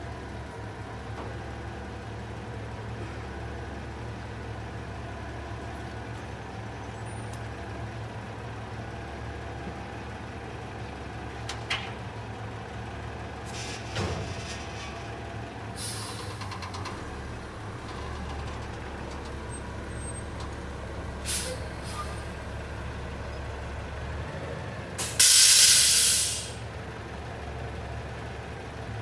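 Mack front-loader garbage truck's natural-gas engine idling steadily, with a few short knocks and brief air hisses. Near the end comes a loud hiss of air from its air brakes, lasting about a second and a half.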